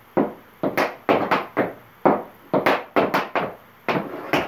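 Child's tap steps in tap shoes on a portable dance board: about a dozen sharp taps in uneven quick clusters.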